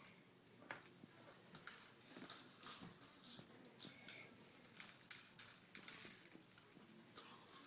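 Candy sprinkles rattling in a shaker container, shaken in short irregular bursts of quick clicks.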